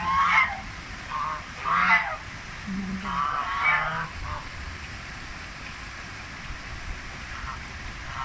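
Domestic geese honking: a run of short calls in the first four seconds, then a faint call near the end, over the steady rush of running water.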